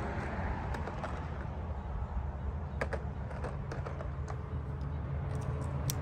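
A few scattered light clicks and taps, most of them in the second half, over a steady low rumble.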